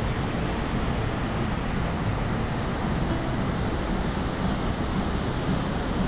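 Kalu waterfall crashing down onto rocks close by: a steady, unbroken rush of falling water.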